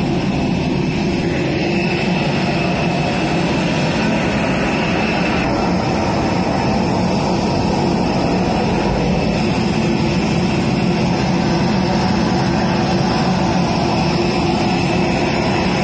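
Steady jet aircraft noise: a loud, even rumble with a thin high whine over it that drops out about five and a half seconds in.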